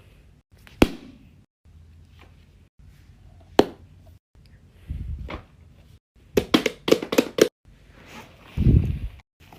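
Small objects handled on a hard surface: single sharp taps, a quick run of about six clicks past the middle, and two short low thuds.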